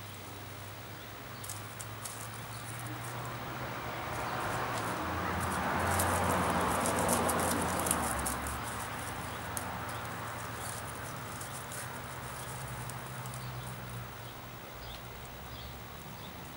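Dry cattail tinder crackling and rustling in the hands as a smouldering ember is blown toward flame. A rushing noise swells over several seconds and fades again.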